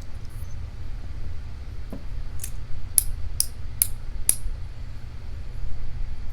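Five light, sharp metallic clicks in quick succession from small metal lock parts and a tool as spool pins are worked out of a padlock's pin chambers, over a steady low hum.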